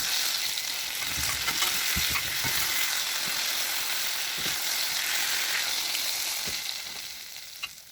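Breadcrumb-coated potato patties sizzling as they fry in oil, with a few light knocks partway through. The sizzling fades out near the end.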